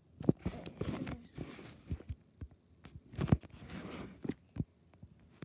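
Handling noise from a handheld phone being moved: several dull thumps, the loudest about a third of a second and three seconds in, with rustling between them.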